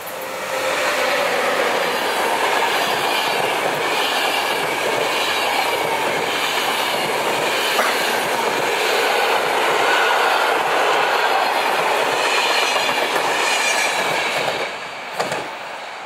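Locomotive-hauled passenger express passing at speed: a red ÖBB electric locomotive followed by a long string of coaches. Loud, steady wheel-and-rail noise with a wavering higher ringing builds within the first second and falls away near the end as the last coach passes. One sharp knock follows just after.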